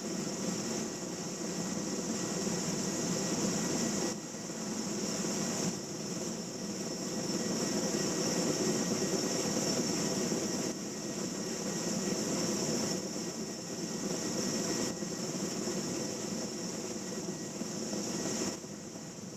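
Steady helicopter turbine and rotor noise, without speech or music. Its level shifts abruptly up and down several times.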